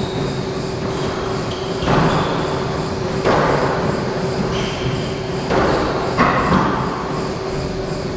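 Squash ball smacked back and forth during a rally: about four sharp hits off racquets and walls, echoing in the enclosed court. Short high squeaks, likely shoes on the hardwood floor, come between them.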